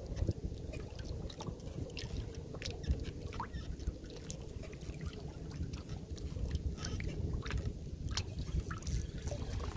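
Wind rumbling on the microphone, with scattered light clicks and ticks.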